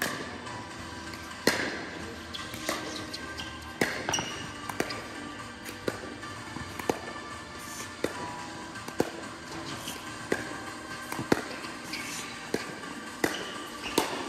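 Pickleball paddles hitting the plastic ball: irregular sharp pops, some louder and close, others fainter from nearby courts, echoing in a large indoor hall. Background music plays under the pops.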